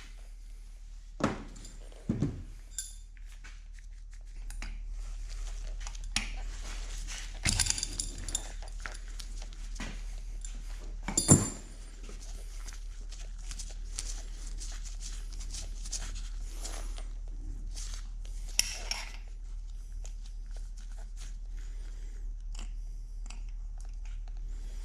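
Hand tools on a Bridgeport milling machine spindle: a punch tapping back the locking tab of the bearing lock washer and a spanner wrench working the spindle nut, heard as scattered sharp metallic taps and clinks, the loudest about eleven seconds in, over a steady low hum.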